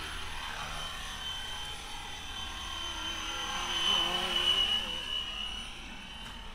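Electric RC helicopter (Fly Wing FW450L-V3) flying a low pass: its rotor and motor whine grows louder, peaks about four seconds in, then fades as it moves away, the pitch bending as it goes by.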